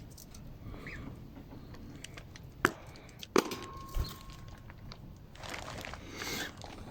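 Two sharp clicks and a dull knock in the middle, then a short stretch of rustling.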